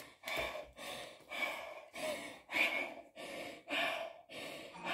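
A woman out of breath from a hard bodyweight workout, breathing heavily in quick, even breaths, a little under two a second.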